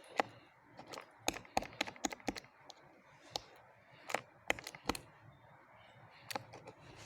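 A run of irregular, sharp clicks and taps, bunched in the middle with a few more near the end.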